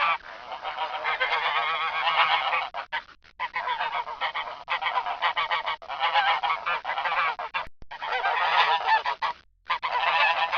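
Geese honking, many calls overlapping in a continuous clamour, broken by a few brief silent gaps.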